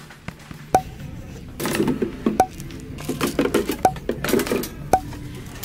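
Four short, sharp clicks, each with a brief tone, spaced about one to one and a half seconds apart over a faint mixed background.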